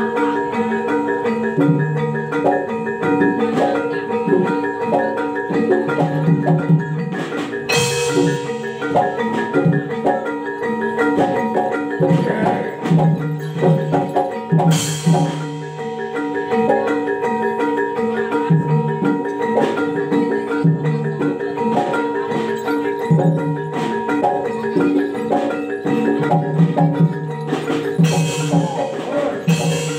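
Javanese gamelan playing live for a barongan dance: bronze metallophones ring out fast repeating melodic patterns over steady low drum strokes. A brief noisy crash cuts through three times, about 8 s, 15 s and 28 s in.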